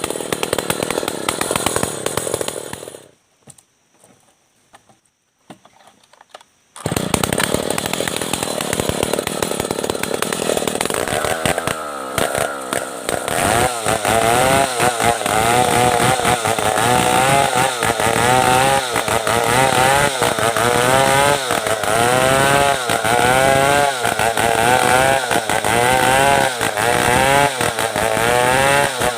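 Stihl 070 two-stroke chainsaw sawing merbau hardwood. It drops to near silence for a few seconds near the start, then runs on with its engine pitch rising and falling about once a second.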